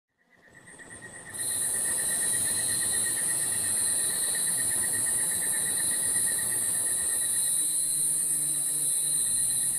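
Night-time forest insect chorus: a steady, rapidly pulsing trill with a continuous high buzz above it, fading in over the first second and a half.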